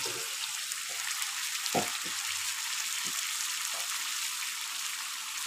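Chicken pieces frying in hot ghee with sliced onions in a wok: a steady, even sizzle, with a couple of faint knocks about two and three seconds in.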